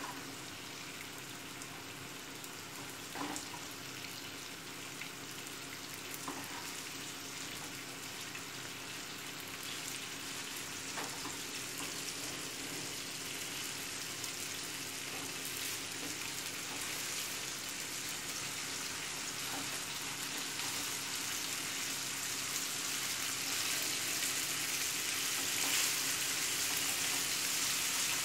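Toasted erişte noodles cooking in butter and hot water in a frying pan: a steady sizzle that slowly grows louder as the noodles take up the water. A few light spatula scrapes come as the noodles are turned.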